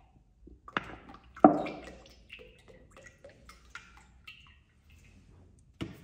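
Cooking oil pouring from an upturned plastic bottle into a cast-iron cauldron, then dripping and pattering into the pool of oil as the bottle empties. A few sharp clicks from the plastic bottle, the loudest about one and a half seconds in, another near the end.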